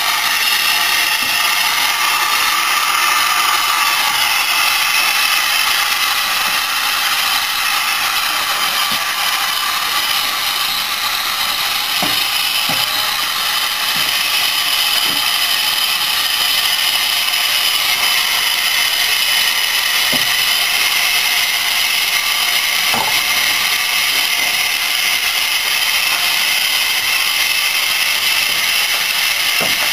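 Steam locomotive SR U Class No. 1638 standing with steam up, giving a steady hiss of escaping steam, with a few faint metallic knocks between about twelve and twenty-three seconds in.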